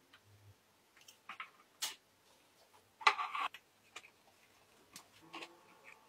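Scattered small clicks and taps, with a short scraping rustle about three seconds in; a faint steady hum sets in near the end.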